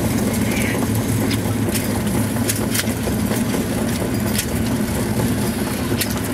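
Starter car's engine running steadily with tyre and road noise, heard from inside the car, with a few sharp ticks scattered through it.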